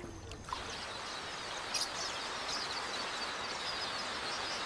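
A huge flock of red-billed queleas: a dense, steady din of countless small chirps from thousands of birds, setting in about half a second in.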